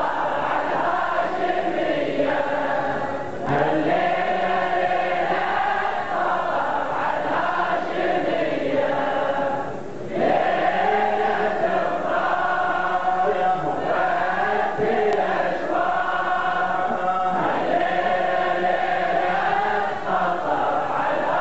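Many men's voices chanting a Shia mourning lament (latmiya) together in long held lines. The chant breaks off briefly about three seconds in and again about ten seconds in.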